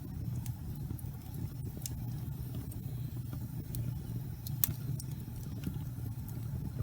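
Wood fire burning in a fireplace: a steady low rumble of the flames with scattered sharp crackles and pops, the loudest about two-thirds of the way through.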